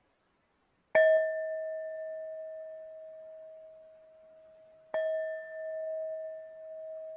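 Tibetan singing bowl struck twice, about four seconds apart. Each strike rings on in a long, slowly fading tone with a fainter higher overtone above it, and the second ring wavers in loudness as it sustains.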